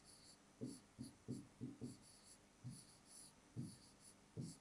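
Pen writing a word on a whiteboard: a string of short, faint strokes coming in quick runs with brief pauses between them.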